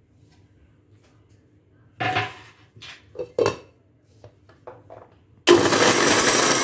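Clatter of a plastic lid being fitted onto a steel mixer-grinder jar and the jar being handled. About five seconds in, the mixer grinder's motor starts and runs at full speed with a loud, steady noise, grinding bread into crumbs.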